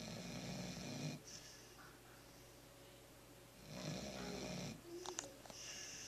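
A sleeping puppy snoring, two snores about a second long and a few seconds apart. A few faint clicks come near the end.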